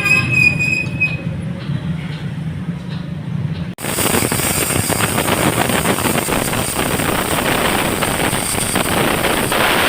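Metalworking sounds: a piece of steel rings with a high tone that fades within about a second. About four seconds in, the sound switches abruptly to a steady, harsh grinding noise.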